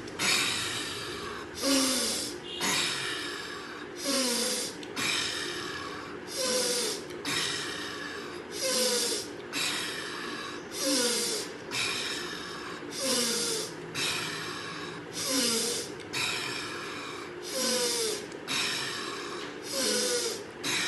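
A man doing forceful pranayama breathing: a sharp, hard in-breath through the nose followed by an exhale out through the mouth, repeating steadily about every two seconds. Each breath carries a brief falling vocal note.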